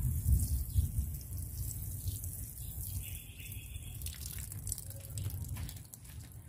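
Water pouring and splattering onto loose, freshly fertilized garden soil, a light watering. Loudest in the first second or so, then easing off.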